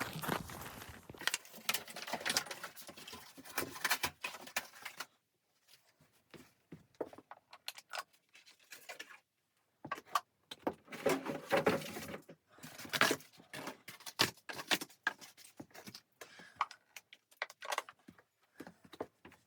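Irregular clinks, knocks and rustling of things being handled in a small room, in two busy stretches, the second starting about ten seconds in, with scattered small ticks between.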